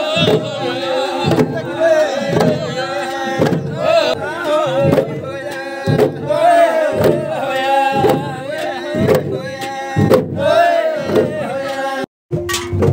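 A group of men chanting and shouting together in a call-and-response style over regular beats, in Garo Wangala festival singing. It breaks off briefly near the end.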